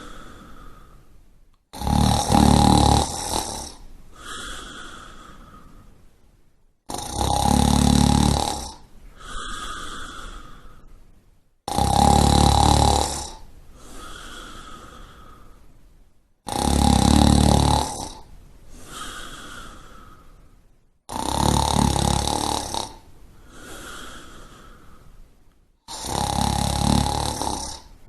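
Snoring in a steady rhythm: a loud snore of about a second and a half comes roughly every five seconds, six in all, and each is followed by a softer, shorter breath sound.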